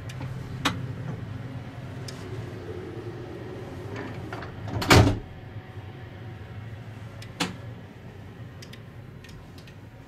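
Interior sliding glass door of an RhB Allegra ABe 8/12 electric train working, with one short loud thud-like noise about halfway through and two sharp clicks, one near the start and one later. A steady low hum fills the carriage underneath.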